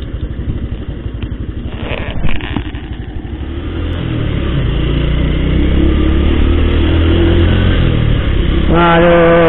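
Honda underbone motorcycle's small single-cylinder engine running while riding, its firing pulses plain at low speed, then growing louder and steadier as the bike picks up speed from about four seconds in. Near the end a man lets out a long call that falls in pitch.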